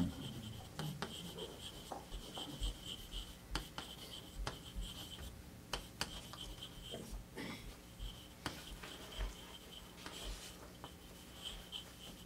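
Quiet room tone with scattered faint clicks and small rustles over a low steady hum.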